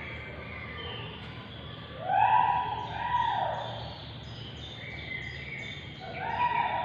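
Bird calls: long drawn-out calls, the loudest about two seconds in and another near the end, with fainter higher calls between them.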